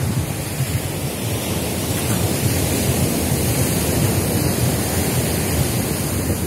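Surf washing onto a sandy beach, a steady noise, mixed with wind buffeting the phone's microphone as a fluttering low rumble.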